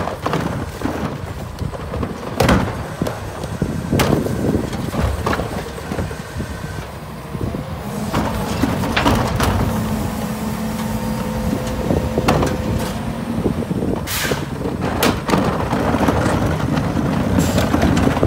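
Rear-loader garbage truck's diesel engine running steadily while plastic garbage carts are emptied at the hopper, with several sharp bangs of carts knocking against the truck. A steady hum holds for a few seconds in the middle.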